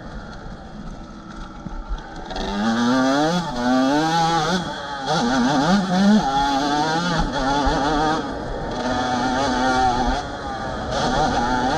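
Yamaha YZ125 single-cylinder two-stroke motocross engine under way. It is held back for about two seconds, then pulls hard, its pitch climbing and dropping again and again as the rider accelerates and shifts through the gears.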